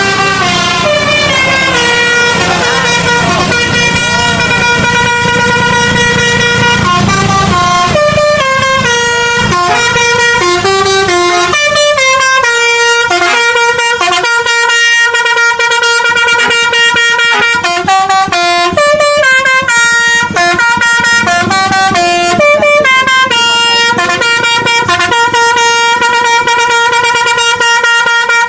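Basuri telolet bus horn playing a tune: a run of loud air-horn notes stepping up and down in pitch. A low rumble lies under the first eight seconds or so and then fades out.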